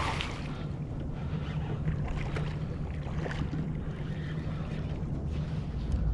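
Wind buffeting the camera microphone, a steady low rumble, with a few faint scattered ticks and knocks.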